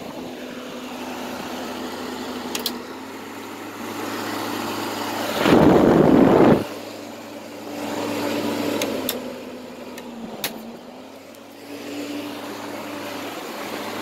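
Window air conditioner's fan motor and blower running steadily with the cabinet cover off, which makes it a little noisier; the compressor is off. About five seconds in, a loud rush of noise lasts about a second.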